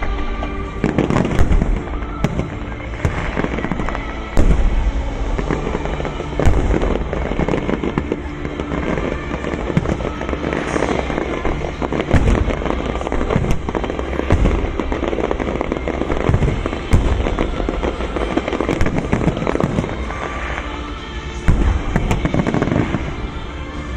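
Fireworks display: a continuous run of shells bursting and crackling, with heavier booms every few seconds. Music plays underneath.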